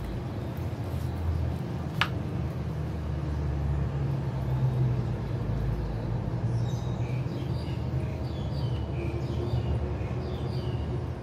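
Steady low background hum with no speech. A single sharp click comes about two seconds in, and faint light high ticks are scattered through the second half.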